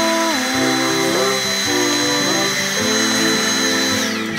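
Handheld vacuum cleaner running with a steady high-pitched whine as its nozzle works inside a plastic stationery drawer; the whine drops away about four seconds in. Background music with a changing melody plays throughout.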